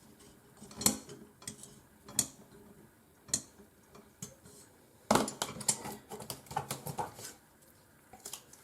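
Metal parts of an aluminum-frame filament spool holder clinking and knocking as they are handled during assembly: a few single sharp clicks, then a quick run of clinks about five seconds in.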